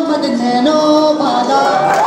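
A song playing: a sung melody in long held notes that step up and down in pitch.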